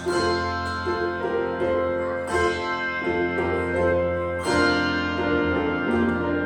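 A handbell choir ringing a slow piece. The bells' notes ring on and overlap, with a fuller chord struck about every two seconds and single notes between.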